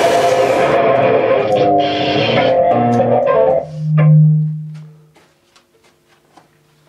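Improvised noise music from an amplified, effects-processed cello: a dense noisy wash cuts off about a second in, then pitched notes step up and down. A loud low note swells and fades away about five seconds in, leaving only faint clicks.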